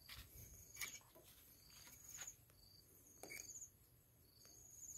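Near silence, with an insect giving a short high chirp about every second and a half, four times, and a few faint clicks.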